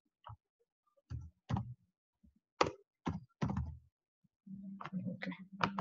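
Computer keyboard keystrokes: a few separate, irregular taps as a search is typed. About four and a half seconds in, a low steady hum starts and runs under further taps.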